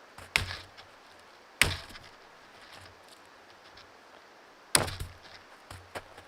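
Wood being struck: three sharp knocks, about a second and then three seconds apart, with a few lighter taps between.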